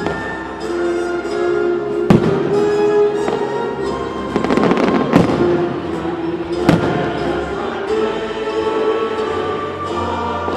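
Fireworks bursting over loud background music: single sharp bangs about two seconds in and again near seven seconds, with a dense stretch of crackling in the middle.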